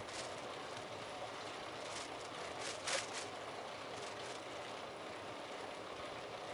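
Steady hiss of road and wind noise from a moving bicycle, with a brief rattle about three seconds in.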